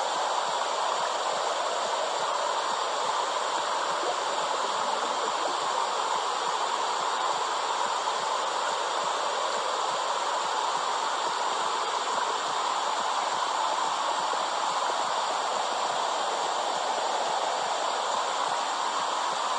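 Steady, even whooshing noise of a womb-sound track made to soothe crying and colicky babies, with no heartbeat beats in it.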